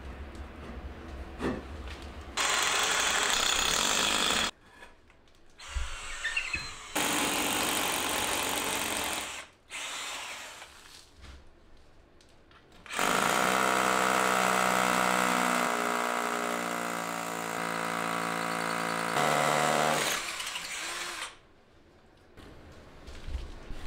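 Cordless drill drilling into a wooden batten in several runs of a few seconds each, the longest about six seconds in the middle with a steady motor whine.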